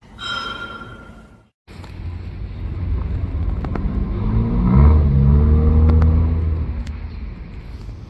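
R211 subway train passing by: its rumble builds to a peak about five seconds in and then fades, with a whine from the motors that bends in pitch as it goes past and a few sharp clicks from the wheels on the rails. A short high tone opens, cut off abruptly just before the pass.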